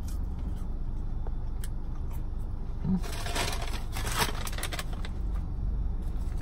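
Paper fast-food bag rustling and crinkling as it is picked up and handled, starting about three seconds in and lasting about a second and a half, over a steady low hum.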